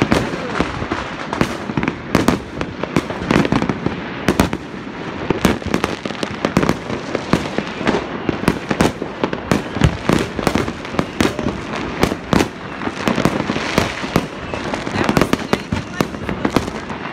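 Aerial fireworks going off without pause: a rapid, irregular string of bangs and pops, several a second.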